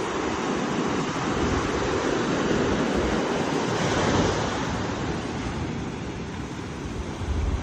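Ocean waves washing in, one surge building to a peak about halfway and then easing off. A low rumble comes in near the end.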